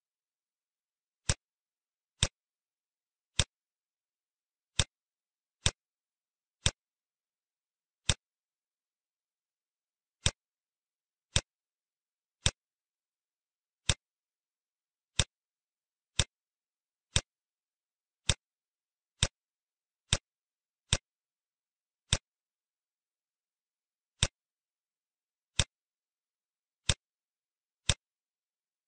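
Short, sharp clicks, one for each key picked on an on-screen keyboard while an address is typed, coming at uneven spacing of roughly one a second with dead silence between.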